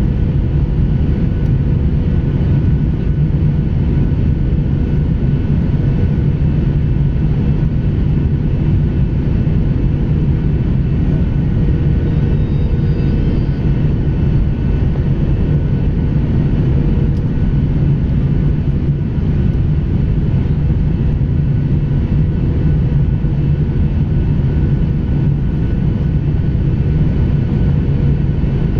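Steady jet engine and airflow noise inside the cabin of a Boeing 737-800 airliner on approach to land, heard from a seat over the wing: an even low rumble with a faint steady hum above it.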